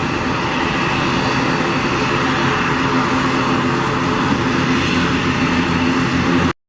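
Airbus A320neo's turbofan engines running at takeoff power: a loud, steady jet roar with a few steady tones in it, which cuts off suddenly near the end.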